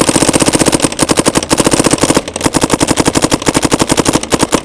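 Dye M3s electronic paintball gun firing a rapid continuous string on compressed air, about a dozen shots a second, with a brief stutter about two seconds in.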